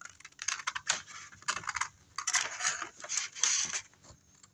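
Scissors snipping through paper, a run of short snips in quick succession as a square is cut out of the sheet.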